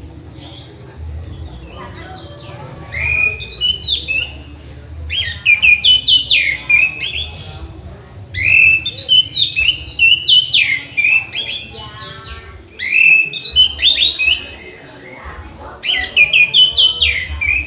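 Orange-headed thrush (anis merah) singing five loud bouts of rapid, varied whistled phrases with short quieter gaps between them.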